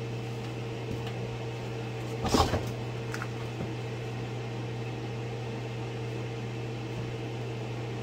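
Steady low machine hum, with a short knocking clatter about two and a half seconds in as plastic PEX water tubing is handled against the wooden floor joists.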